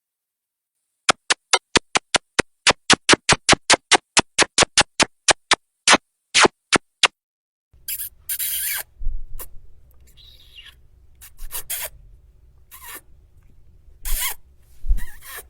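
Kissing sound effect. First a fast run of about two dozen short lip smacks, roughly four a second. Then, from about halfway, longer, wetter smacking and rubbing mouth sounds at an irregular pace.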